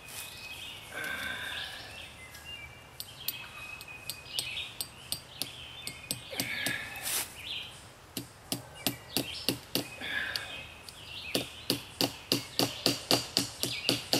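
Hammer driving fence staples into a tree trunk to hold chicken wire under tension: scattered light taps at first, then steady strikes about three a second that grow louder in the last few seconds. Birds chirp in the background.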